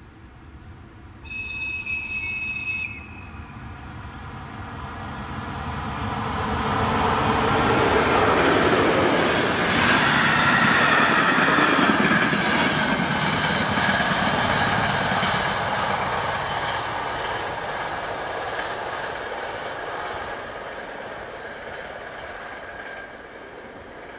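Passenger express train passing over a level crossing. It opens with one short horn blast about a second in. The train's rumble then builds as it approaches, is loudest in the middle as the coaches go by with a run of wheel clicks, and fades slowly as it moves away.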